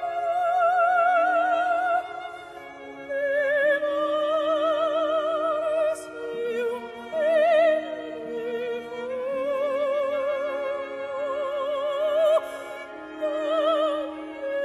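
Operatic singing with strong vibrato over sustained orchestral accompaniment: a classical music soundtrack.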